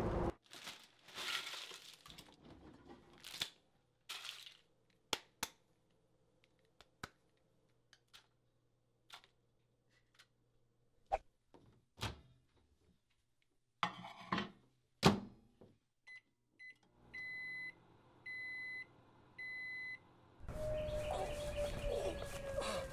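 Microwave oven in use: scattered clicks and thunks from its door and keypad over a faint low hum, the loudest a sharp thunk about fifteen seconds in. Then come three even beeps about a second apart, the microwave's end-of-cycle signal. Near the end it cuts to louder steady outdoor noise.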